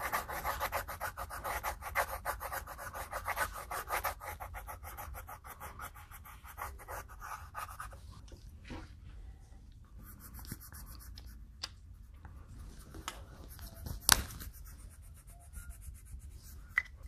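Coloured pencil scribbling rapidly back and forth on paper on a clipboard, filling in a small area with colour. The fast strokes stop about eight seconds in, leaving fainter rubbing and a couple of sharp clicks.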